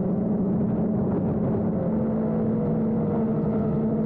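Motors and propellers of an iFlight Nazgul Evoque F5X FPV quadcopter humming steadily in flight, the pitch drifting a little with throttle.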